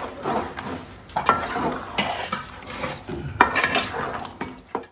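A metal spoon stirring thick chicken curry in a large aluminium pot, scraping through the paste and striking the pot with several sharp clinks.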